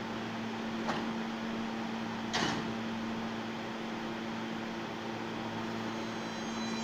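R160-series subway train standing at the platform with a steady electrical hum. Its doors slide shut with a light click about a second in and a louder knock about two and a half seconds in. Faint high whining tones begin near the end.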